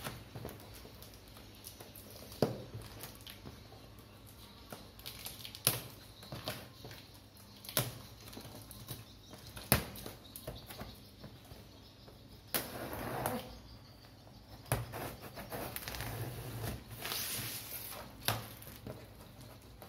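A cardboard monitor box being handled and shifted on a tile floor: scattered sharp knocks and taps, about one every two seconds. Plastic-bag rustling swells in twice in the second half.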